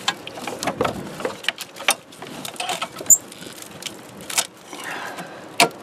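Hands working plastic wiring harnesses and connectors loose in an engine bay: scattered clicks, taps and rustling, with a few sharper clicks.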